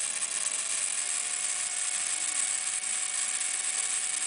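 Genius CP micro RC helicopter's electric motor and gear drive spinning the rotor head at about 60% throttle: a steady, high whine with a whirring hiss, the pitch stepping up slightly about a second in.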